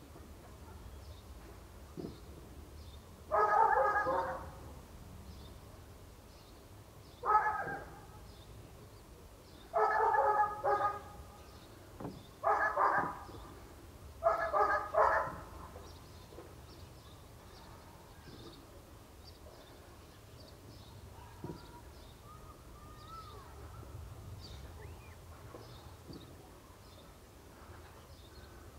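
A dog barking in five short bouts over about twelve seconds, some bouts a double bark, with faint high chirping going on throughout.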